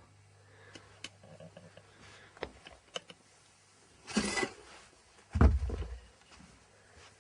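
Scattered light clicks and knocks, a short rustling noise about four seconds in, then a heavy low thump just after.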